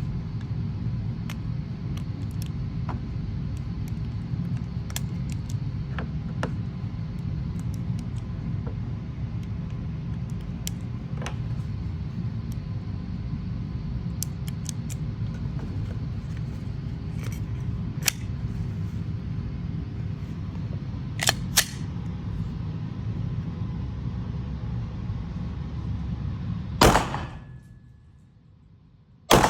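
Glock 17 pistol shots: a few sharp reports over a steady low rumble with scattered small clicks. The loudest report comes near the end, the rumble fades away after it, and another sharp report follows at the very end.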